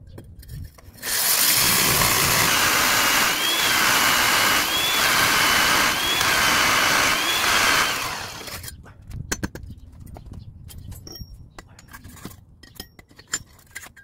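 Rotary hammer drill boring into a brick wall. It starts about a second in, runs loud and steady under load with a whine that wavers in pitch about every second and a half, and stops about eight seconds in. Scattered light clicks and knocks follow.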